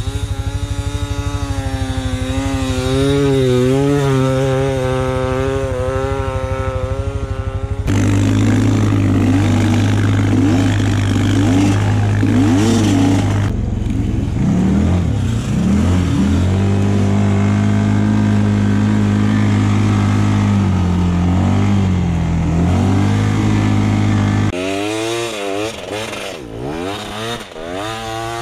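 Beta 300RR two-stroke dirt bike engine revving and running hard through snow. About 8 seconds in it changes abruptly to a steady, deeper drone at constant throttle; near the end it turns quieter, with revs that rise and fall as the rear wheel spins up snow.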